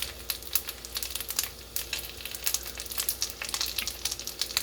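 Chicken dumplings pan-searing in a hot pan, sizzling with a steady crackle.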